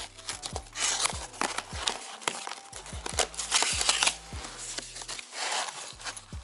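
Cardboard shipping box wrapped in packing tape being torn open by hand: irregular ripping of cardboard and tape with crinkling and rustling.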